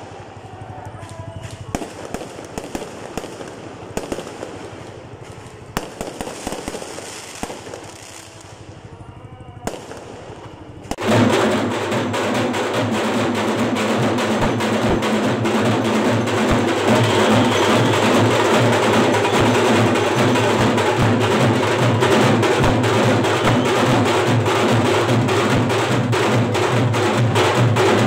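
Fireworks popping and crackling for about the first ten seconds. Then, suddenly louder, fast dense festival drumming takes over, with a steady droning tone under the beats.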